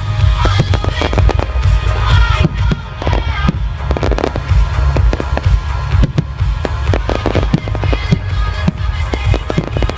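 Fireworks going off in rapid succession, many bangs and crackles over a loud music soundtrack with a heavy deep bass.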